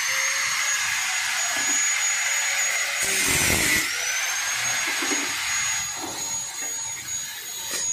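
Electric angle grinder running at full speed with a steady high whine, its disc working the rusted sheet steel of a vintage Vespa body. About three and a half seconds in, the whine sags briefly under load with a burst of grinding noise, then picks back up.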